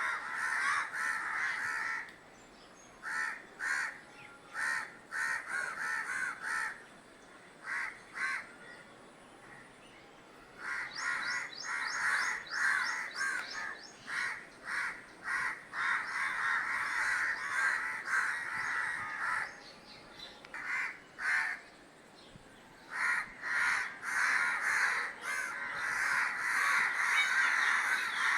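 Several crows cawing, with calls overlapping in dense bouts separated by lulls of scattered single caws.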